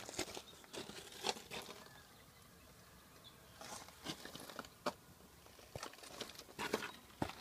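Scattered rustling and crunching from handling and movement around the camera, in short irregular bursts.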